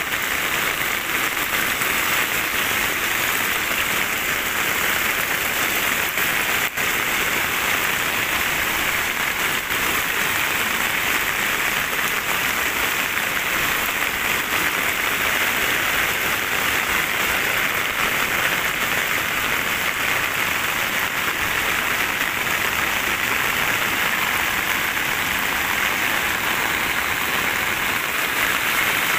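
Heavy rain pouring down steadily: a dense, even hiss of a tropical downpour that does not let up.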